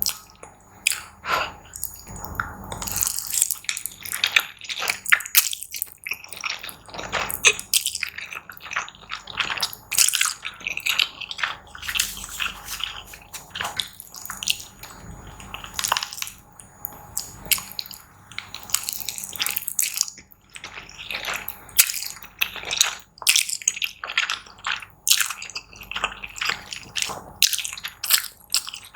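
Close-miked mukbang eating sounds: wet chewing and mouth smacks, a dense, irregular run of short clicks and squelches.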